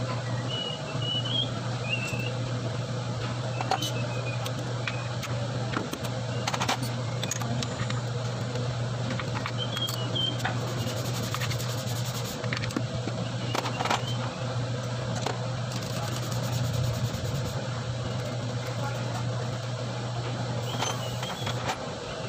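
A steady low hum, with short high chirps and a few light clicks scattered over it.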